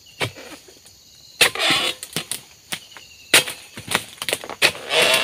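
Oil palm frond bases being chopped with a long-handled harvesting chisel (dodos): a string of sharp chops, some followed by a short rustle of leaves as fronds come down.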